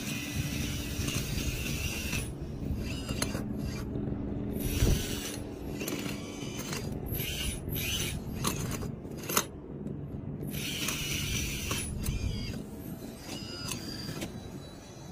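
Kabolite K961-100 1/18-scale hydraulic RC excavator working: its hydraulic pump whines in spells that cut in and out as the boom, arm and tracks are moved, with mechanical gear and track clatter, scattered clicks and a sharp knock about five seconds in.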